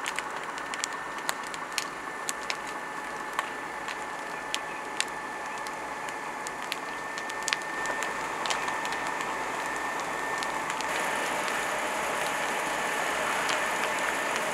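Large wooden building fire crackling, with frequent sharp pops and snaps over a steady rush, and a faint steady high whine. The pops come thickest over the first eight seconds, and the rush grows louder about eleven seconds in.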